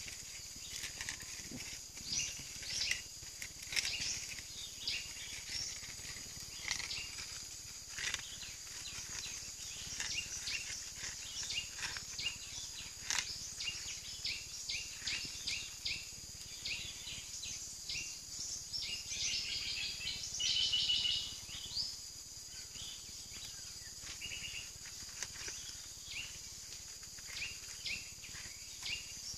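Natural ambience with no speech: insects keep up a steady high hum while birds chirp in short calls throughout, with a louder rapid trill of chirps about two-thirds of the way in.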